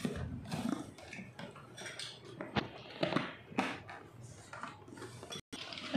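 Hard plastic toy foam-dart blaster being handled, with scattered light knocks and clicks of plastic parts and a few sharper clicks about halfway through.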